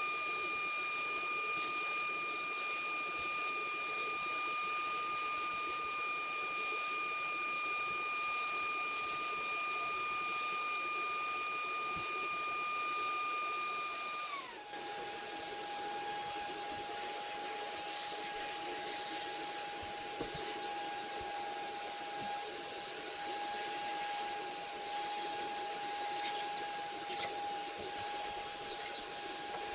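High-speed electric motor of a cleaning tool, a vacuum or air blower, whining steadily over a hiss of rushing air. About halfway through the whine drops suddenly to a lower pitch and carries on steadily at the lower speed.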